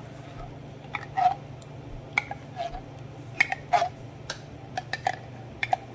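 Wooden spoon knocking and scraping inside a tin can as thick condensed cream of celery soup is scooped out: a string of irregular sharp clicks and knocks, some with a brief ring.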